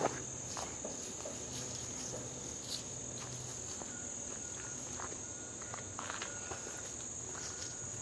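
Steady, high-pitched chorus of insects droning without a break, with scattered soft knocks or steps over it.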